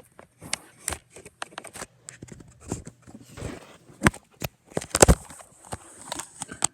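Plastic Nerf blaster being handled and worked on: an irregular run of clicks and knocks, with the two loudest knocks about four and five seconds in.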